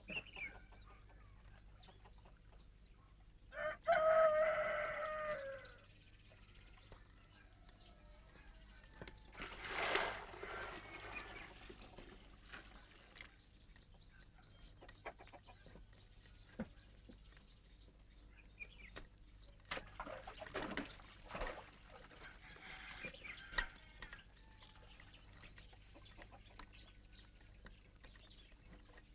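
A rooster crowing, one long call about four seconds in, followed by a quieter, rougher fowl call and a few light knocks later on.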